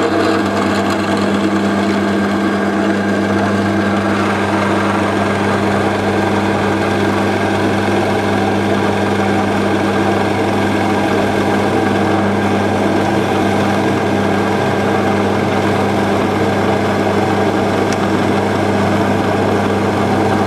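Record Power benchtop pillar drill running at speed with a Forstner bit boring steadily into softwood: a steady motor hum under continuous cutting noise as big shavings pour out. The drill is running too fast for the bit and is heating up a little.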